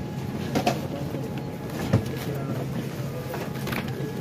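Steady low hum of an airliner cabin's air system with faint passenger chatter, and a few short knocks, the sharpest about two seconds in.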